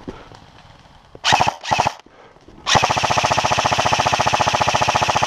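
Airsoft rifle firing on full auto: two short bursts, then a long unbroken burst of rapid, evenly spaced shots lasting about two and a half seconds.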